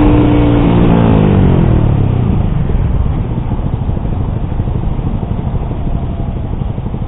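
Yamaha R15 V3's single-cylinder engine through an SC Project exhaust with a dB killer fitted. The engine note falls in pitch about a second in as the throttle is closed, then settles into a steady low rumble.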